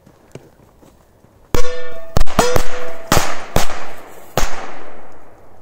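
A multi-bang firecracker going off under an upturned white enamel bowl: about seven sharp blasts over roughly three seconds, starting about a second and a half in. The metal bowl rings briefly after the first blasts.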